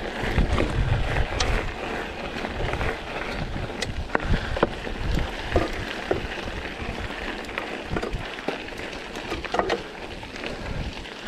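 Mountain bike riding a forest trail: wind rushing over the microphone, strongest in the first second or so, with tyre noise and scattered clicks and rattles from the bike over the ground.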